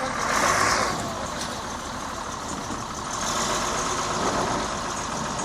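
Diesel engine of a Caterpillar 966F wheel loader idling steadily, with a louder rush of noise in the first second.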